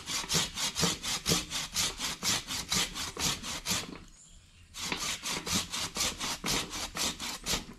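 Hand saw cutting through the woody trunk of a Taiwan premna bonsai being chopped back, in quick, even back-and-forth strokes of about five a second. There is a short pause about four seconds in, then the sawing resumes.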